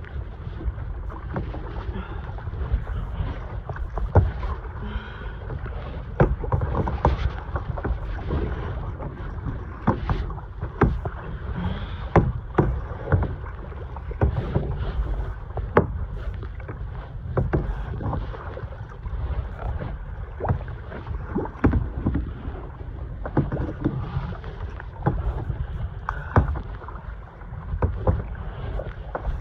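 Kayak on open ocean: paddle splashes and water slapping against the hull, with frequent short knocks, over a steady low wind rumble on the microphone.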